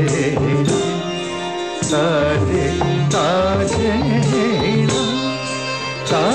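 Odissi dance accompaniment in Raga Mukhari, Tala Tripata: a melodic line with sliding ornaments over a steady drone, marked by hand-drum strokes.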